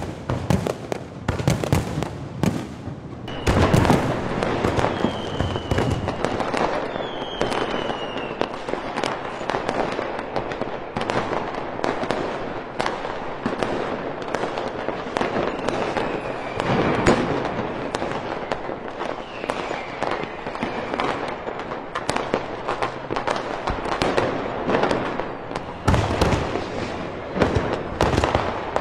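Fireworks display: a dense, continuous barrage of shell bursts and crackling, with deeper booms about four seconds in and again near the end. Several whistles fall in pitch.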